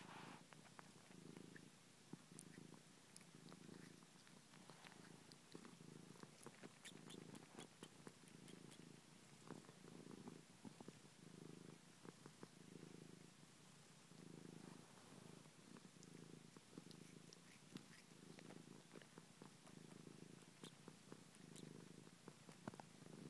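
Domestic cat purring softly while suckling on a human finger, the purr swelling and fading with each breath about once a second, with faint wet clicks from the sucking.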